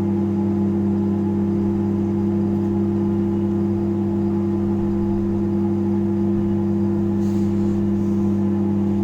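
MarQ 25 L convection microwave oven running in microwave mode: a steady, even electrical hum from the magnetron and its transformer.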